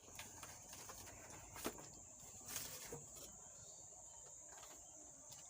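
Faint scattered clicks and knocks from an amplifier's circuit board being handled and fitted back into its chassis, over a steady faint high-pitched whine.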